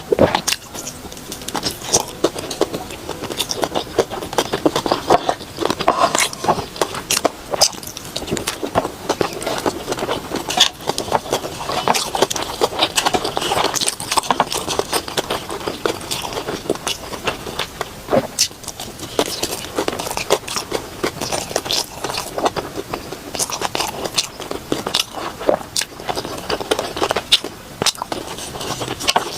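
Close-miked eating sounds: chewing, biting and wet mouth clicks, coming irregularly throughout.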